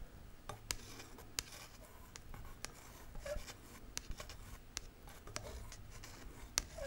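Coffee being stirred in a mug, the stirrer scraping and clicking lightly and irregularly against the inside, about two clicks a second.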